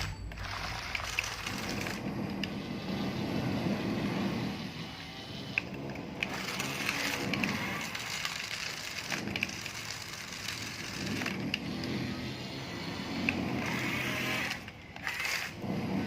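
RC toy construction trucks working in dirt: small electric motors running in spurts as soil and gravel crunch and scrape under the wheels and bucket, with scattered clicks.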